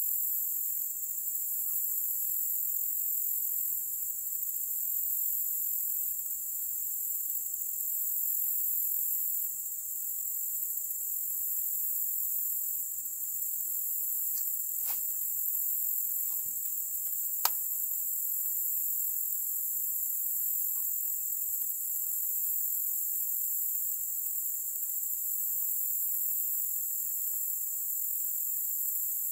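Steady, high-pitched chorus of insects, crickets among them. Two sharp clicks cut through about halfway, the second one louder.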